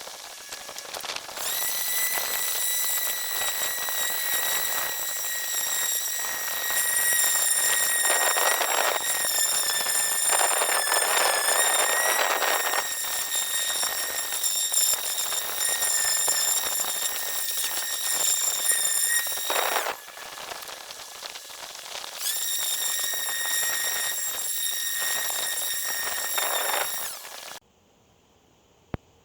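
High-speed electric power tool motor running on wood with a steady high-pitched whine, grittier in spots as it bites. It stops about two-thirds of the way through, starts again a couple of seconds later, and cuts off near the end.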